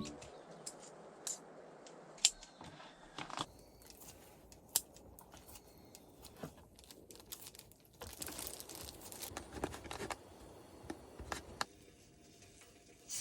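Small handling sounds: scattered sharp clicks and soft rustling and crinkling, with a denser stretch of crinkling about eight seconds in.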